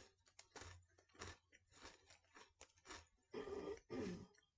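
Crunchy Cookie M&M's being chewed: quiet, irregular crunches every fraction of a second, with a louder, longer noise about three and a half seconds in.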